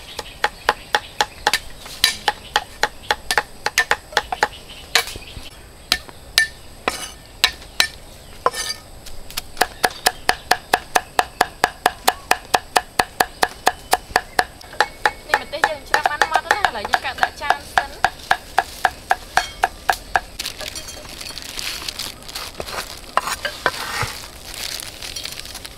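Cleavers chopping garlic and red chilies on round wooden chopping blocks: fast, even knocks at about four strokes a second. The strokes thin out over the last few seconds.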